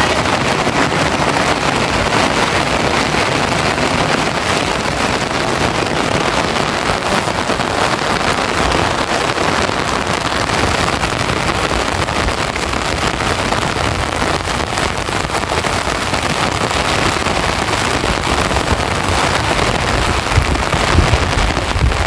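Heavy rain pouring steadily, a dense even hiss, with wind gusting against the microphone near the end.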